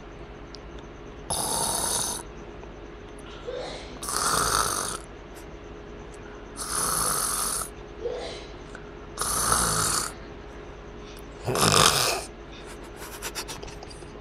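Heavy snoring during deep sleep: five loud, rasping snores, about one every two and a half seconds, with softer breaths between them.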